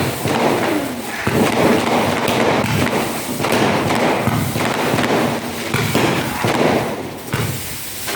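Aerial fireworks going off in quick succession, one dull thump after another with hardly a pause.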